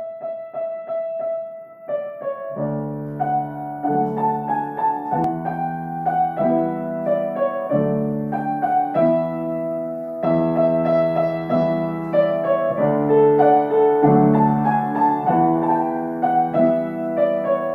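Background music on piano or electric keyboard: a single repeated high note for the first two seconds, then a gentle melody over chords with a bass line.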